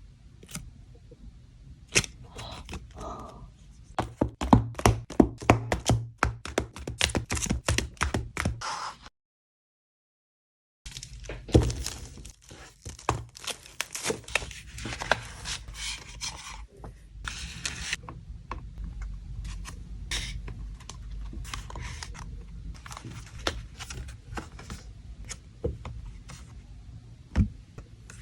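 Hands handling boxed K-pop albums: quick taps, clicks and knocks on cardboard, with crinkling and scraping of plastic wrap and packaging. Partway through, the sound drops to about two seconds of dead silence, then the handling resumes, and there is one sharp knock near the end.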